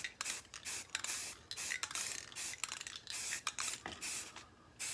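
Aerosol can of Rust-Oleum 2X flat grey spray paint hissing in short, irregular bursts.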